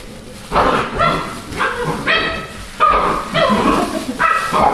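Young puppies whimpering and yipping: a run of short, high whines, one after another.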